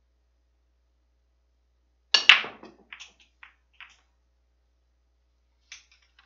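Pool break in nine-ball: two sharp cracks close together, the second louder, as the cue strikes the cue ball and the cue ball smashes into the racked balls. Scattered clicks follow over the next second or so as the balls collide with each other and the rails, with a few more clicks near the end.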